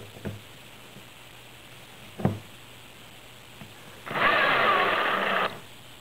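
A cordless drill runs steadily for about a second and a half, driving a hex-drive threaded insert into a piece of wood, and stops abruptly. Before that there are small clicks at the start and a single knock about two seconds in.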